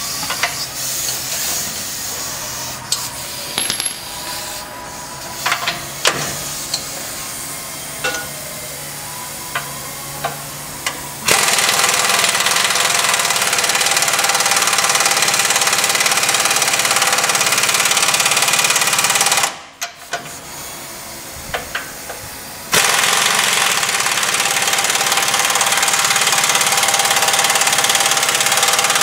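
Pneumatic impact wrench running on the snowplow mounting-bracket bolts, tightening them: two long runs, the first starting about a third of the way in and lasting some eight seconds, the second after a short pause and running to the end. Before the first run, scattered clicks and clinks of metal.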